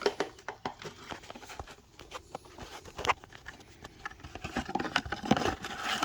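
New oil filter kit's packaging being opened and searched by hand: scattered clicks and rustles, with a few sharper knocks about three and five seconds in.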